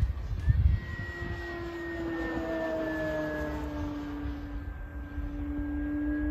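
Electric motor and propeller of a radio-controlled pattern plane in flight, giving a steady whine whose pitch sinks slowly and then rises again near the end. Wind buffets the microphone around the start.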